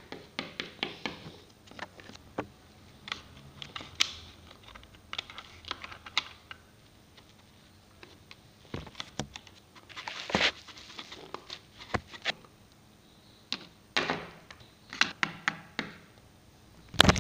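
Irregular small clicks and taps of plastic toy figurines and a plastic toy house being handled and set down on a hard surface, with a few brief scuffs and a louder knock near the end.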